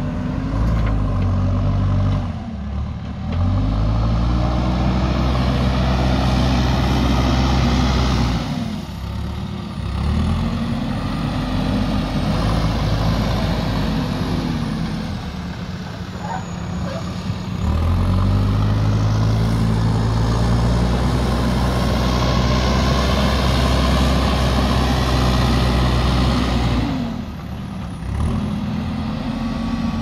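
JCB 3DX backhoe loader's diesel engine working under load, revving up and dropping back twice as the machine drives and works its loader bucket.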